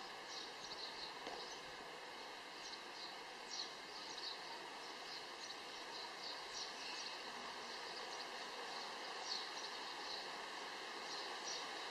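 Outdoor ambience: a steady background hiss with many short, high chirps from small birds scattered irregularly throughout.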